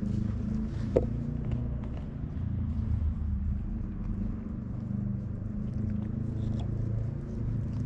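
Domestic cat purring steadily while being stroked, the low rumble swelling and easing with its breaths. A single sharp click about a second in.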